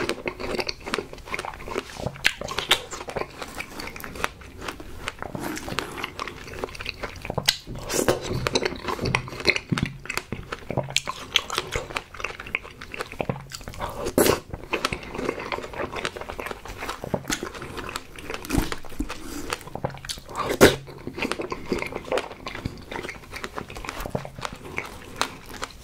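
Close-miked chewing and biting of fresh strawberries with whipped cream: wet, juicy mouth sounds with frequent lip smacks and sharp clicks.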